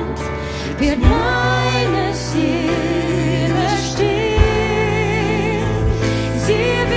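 A German worship song: a woman sings lead with vibrato over band accompaniment, and a few sharp thumps fall in the beat.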